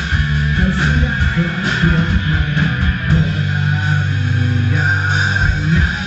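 Punk rock band playing live: electric guitars, bass guitar and drums.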